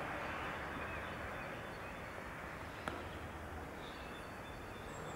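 Steady outdoor background noise with a low rumble, a single sharp click about three seconds in, and a faint bird chirp near the end.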